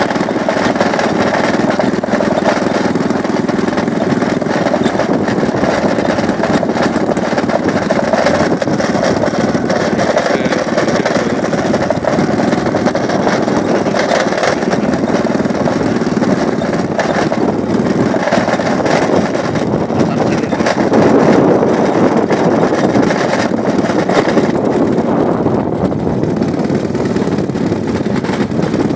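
Motorcycle engine running steadily while riding along a dirt road, mixed with the rush of wind.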